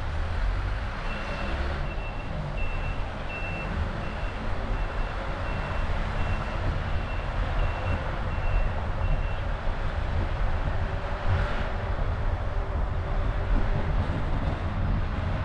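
A Honda CR-V 1.5 driving, with steady road and engine rumble. Over it comes a series of short, high beeps, about one and a half a second, from about a second in until a little past the middle.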